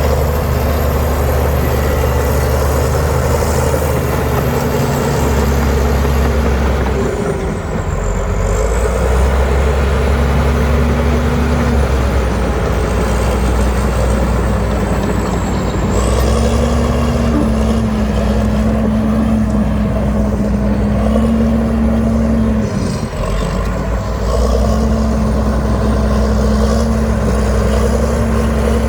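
Heavy diesel engine of earthmoving machinery running hard, its note shifting in pitch as the load changes, with brief dips about a quarter of the way in and again about three quarters through. A thin high whine rises and falls along with it.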